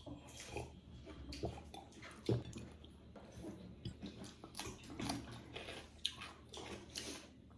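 A person biting and chewing buffalo-meat momo dumplings close to the microphone: irregular wet mouth sounds and small clicks, one sharper bite about two seconds in.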